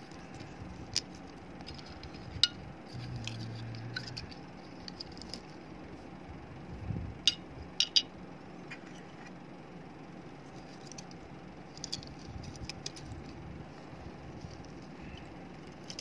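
Small hard clicks and taps of plastic charger casings and circuit boards being handled and set down on a cloth-covered table. The sharpest taps come about a second in, at two and a half seconds, and twice close together near eight seconds.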